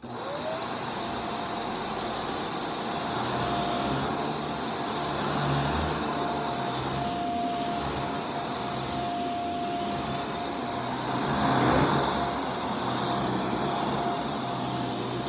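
Shark Vertex upright vacuum switched on, its motor spinning up with a short rising whine and then running steadily with a thin whine over the air rush as it is pushed across carpet. The sound swells briefly about twelve seconds in.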